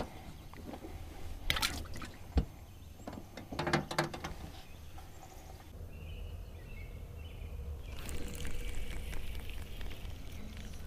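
A few sharp knocks in the first four seconds as a bluegill goes into a fishing boat's live well and the hatch lid is handled, with water pouring and trickling.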